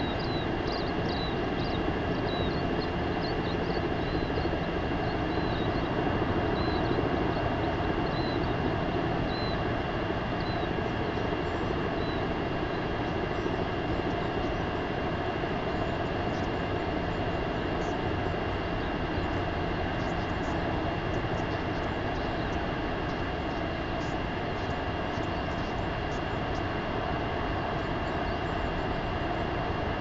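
Steady wind noise rushing on an outdoor microphone. Faint high chirps repeat about every two-thirds of a second through the first dozen seconds, then fade out.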